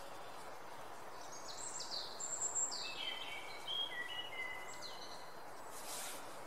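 Steady outdoor hiss, with a bird calling in short chirps and downward-sweeping whistles through the middle stretch.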